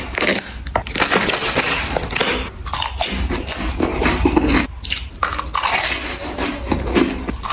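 Close-miked eating: food being bitten and chewed with dense, continuous crunching and crackling.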